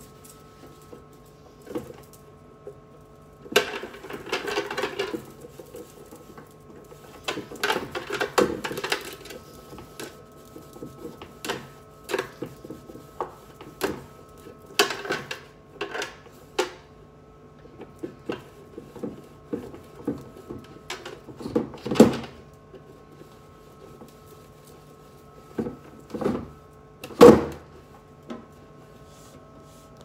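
Hand wiping and scrubbing the plastic door bins of a refrigerator with a cloth: rubbing passages about 4 and 8 seconds in, and scattered knocks and clicks of plastic. The sharpest knocks come about two-thirds of the way in and near the end, over a faint steady hum.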